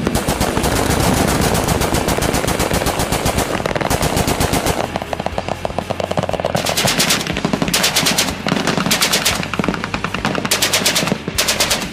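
Machine-gun fire: one long continuous burst of rapid, evenly spaced shots, then several shorter bursts with brief gaps between them.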